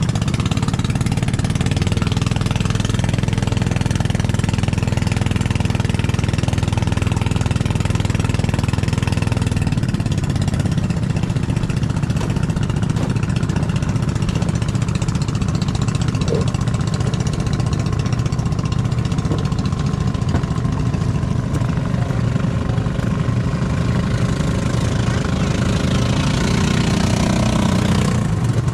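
Motorised outrigger boat (bangka) engine running steadily under load while towing a bamboo raft. A second, higher engine note rises near the end.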